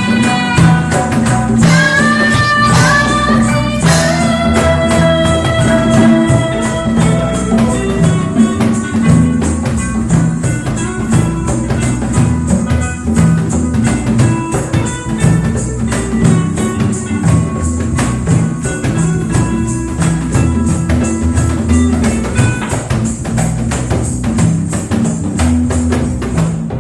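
A live reggae band playing: a steady bass line under evenly repeating percussion hits, with held melody notes over the top.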